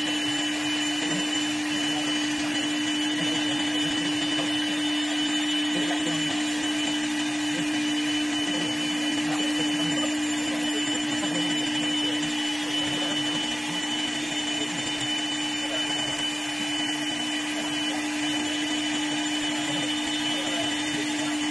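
Camel CA1530 CNC wood lathe running and cutting a wooden pool cue blank. It makes a steady motor hum with a high, thin whine above it, over an even hiss of the cutter shaving wood.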